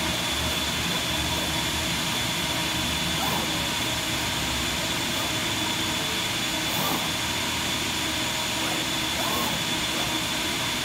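Colex CNC cutting table running as its tool head cuts corrugated cardboard: a steady rush of machine noise with a high, steady whine.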